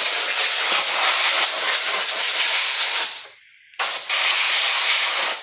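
A jet of air blowing dust off a circuit board, a loud steady hiss for about three seconds, a brief pause, then a second blast that cuts off suddenly.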